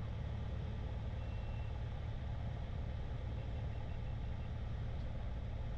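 Piper Arrow's piston engine running steadily at low taxi power, a constant low hum.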